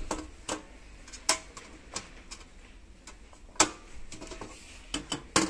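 Irregular sharp clicks and light knocks of metal baking tins being handled, some with a brief metallic ring, the loudest about a second in, near the middle and near the end.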